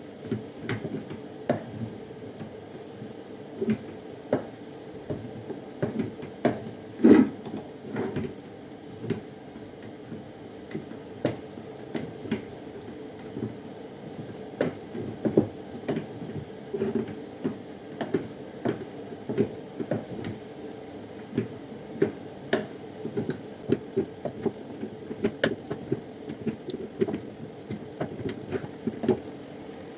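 Repeated irregular knocks and clatters of cooking utensils, coming faster in the second half, over a steady low hum.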